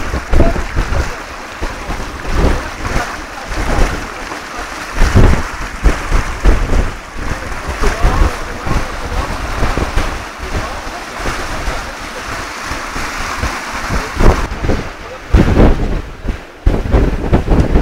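Strong wind buffeting the microphone in irregular loud gusts over the rush and splash of water along the hull of a sailboat moving fast in a force 6 breeze.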